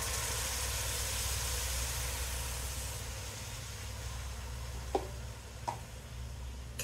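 Homemade shrimp stock poured into a hot pot of onions and peppers browned in vegetable oil with flour, sizzling with a steady hiss that dies down after about three seconds. Two light knocks near the end, over a steady low hum.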